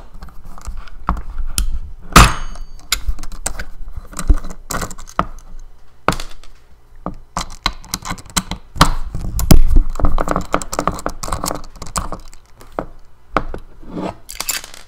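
Irregular clicks and knocks of a small Torx screwdriver and metal hard-drive parts being handled while screws are backed out of the drive's internals. The sharpest knocks come about two seconds in and again about nine to ten seconds in.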